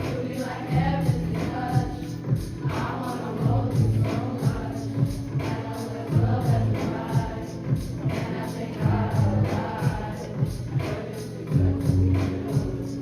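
Pop song playing: a voice singing over a steady beat with tambourine-like percussion.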